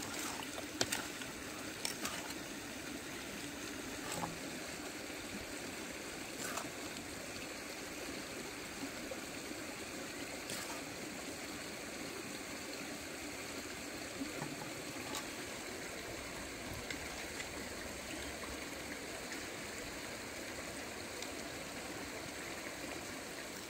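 Steady rush of a nearby stream, with a few light clicks and taps scattered through it.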